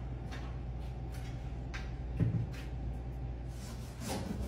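A steady low hum with a few faint knocks, and a dull thump about two seconds in.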